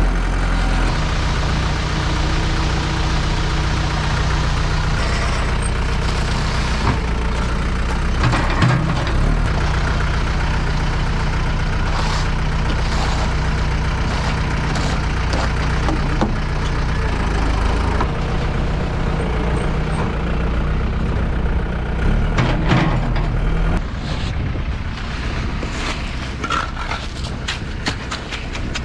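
Ready-mix concrete truck's diesel engine running steadily while concrete is poured, with a few knocks and scrapes. The engine drops lower about 24 seconds in.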